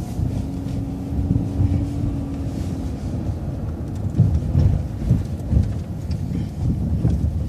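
City transit bus running, heard from inside near the driver: a low engine and road rumble with irregular low thumps as it turns and rolls in, and a steady hum over the first three seconds.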